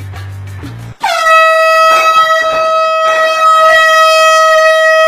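Background music with a steady bass line cuts off about a second in, and a loud air horn blasts one long, steady note that slides down slightly as it starts.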